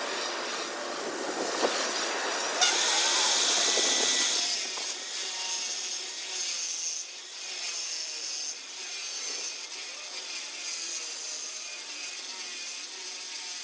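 Grinder working a granite boulder, a harsh, gritty abrasive noise. About two and a half seconds in it turns louder and hissier for a second and a half, then goes on more unevenly.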